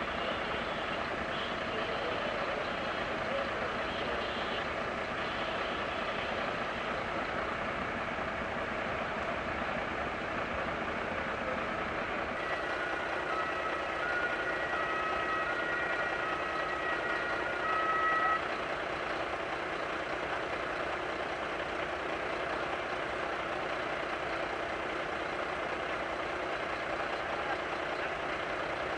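Heavy vehicle diesel engines idling steadily at a fire brigade scene. Partway through comes a short run of electronic beeping tones that change in pitch, lasting about six seconds.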